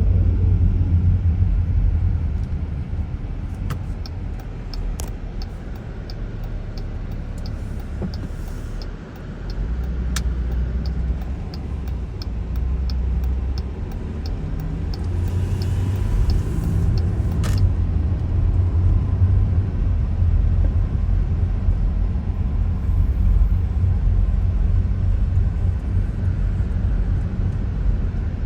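Car driving slowly through a residential street, heard from inside: steady low engine and road rumble, with a quick, regular light ticking from about four seconds in until a little past halfway.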